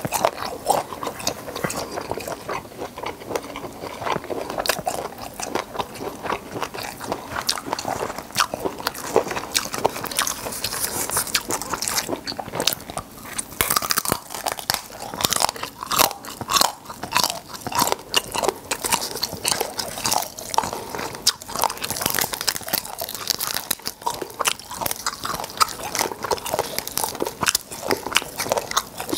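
Black tiger shrimp being bitten and chewed: a continuous run of wet crunching and crackling clicks, with no break.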